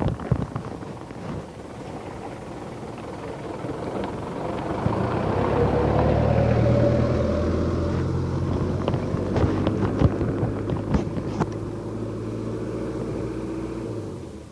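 Kawasaki ZX-4RR inline-four motorcycle engine running through an SC-Project S1 exhaust, growing louder a few seconds in, then holding a steady note before dropping away just before the end. A few sharp clicks come through the middle.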